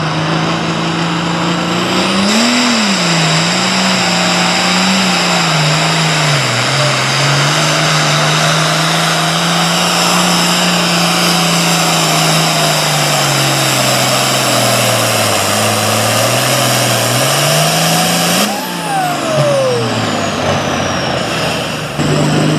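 Super farm pulling tractor's diesel engine working hard under load on a pull, its note wavering up and down over loud tyre and exhaust noise. Near the end the engine rises sharply in pitch and then falls away.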